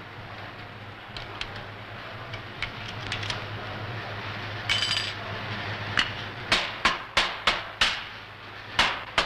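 Mallet blows on a wooden planer block laid over lead type in a steel page form, planing the type down level: a run of sharp knocks, about three a second, starting about six seconds in. Before it comes a single metallic clink, over a steady low hum.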